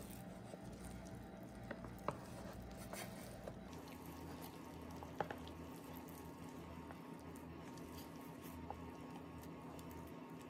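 Spatula folding thick blueberry batter in a bread machine's non-stick pan: faint squishing, with a few light taps of the spatula against the pan, over a steady low hum.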